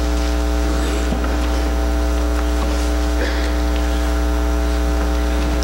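Loud steady electrical mains hum in the audio feed, a low drone with a buzzy stack of overtones that does not change, with a few faint clicks and rustles over it.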